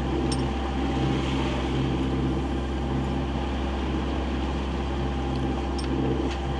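Yanmar 4JHE four-cylinder inboard diesel of a sailing yacht running steadily under way: a constant, even drone with a steady hiss over it.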